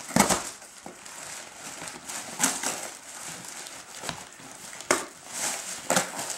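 Gift wrap and tissue paper crinkling and rustling as a cardboard gift box is pried open, with a few sharp crackles and rips.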